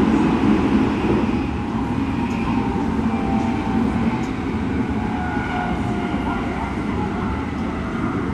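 Keikyu 1000-series electric train running, heard aboard: a heavy low rumble of wheels and running gear with a faint, shifting electric whine from its Toyo IGBT-VVVF traction drive. This car is known for abnormally loud drive noise.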